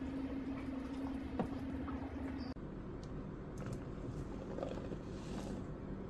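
Fresh blueberries and raspberries tipped from a plastic tub into a cooking pot, falling in with a soft patter and a few light taps. A steady low hum runs underneath, and the background changes abruptly about two and a half seconds in.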